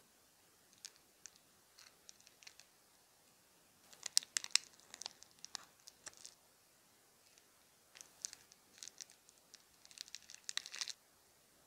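Plastic piping bags crinkling and crackling as they are handled and squeezed, in short crisp bursts: a dense cluster about four seconds in and another from about eight seconds until near the end.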